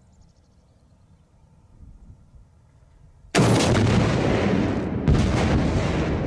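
An M136 AT4 84 mm anti-tank launcher firing: a single loud blast about three seconds in that rings on, followed a little under two seconds later by a second loud boom.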